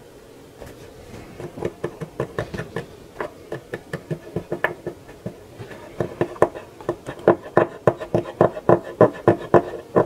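Alcohol-soaked cotton swab scrubbed back and forth over a corroded circuit board, cleaning off the corrosion: a run of short rubbing strokes, about three a second. The strokes start about a second in, pause briefly around the middle, and are loudest near the end.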